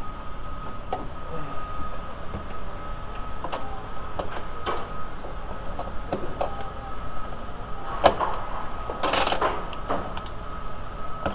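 Scattered sharp metal clicks and knocks as a flat-blade screwdriver pries at the socket end of a wiper linkage rod on its crank arm, with a louder click about eight seconds in and a short scraping rattle just after.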